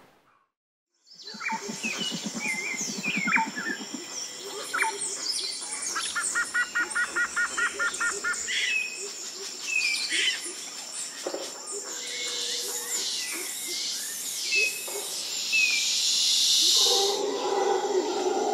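Natural soundscape of many birds chirping and calling over a steady high-pitched drone, starting suddenly after about a second of silence. A few seconds in, one bird gives a quick run of about ten evenly spaced notes. Later a loud buzzing swells for several seconds, and a lower call comes in near the end.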